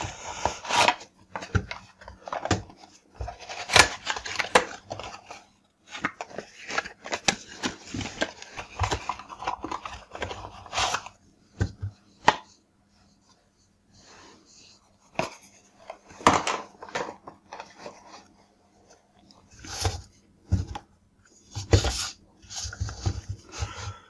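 Cardboard boxes being opened and handled, and plastic-bodied LS Metasol magnetic contactors taken out and set down on a tabletop: irregular rustles, clicks and knocks, with a quieter pause about halfway through.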